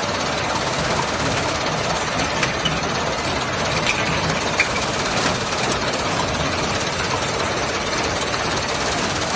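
A rotary filling and capping machine for 5-litre water bottles running steadily: a dense, even mechanical clatter and hum with scattered sharp clicks.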